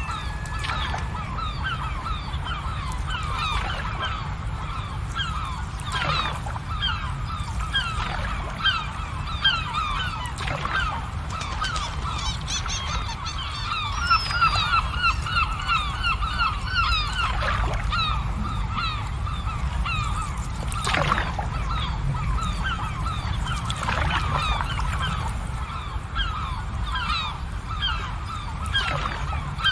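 A large flock of birds calling continuously in many short, overlapping calls, over a steady low rumble, with an occasional sharp pop every few seconds.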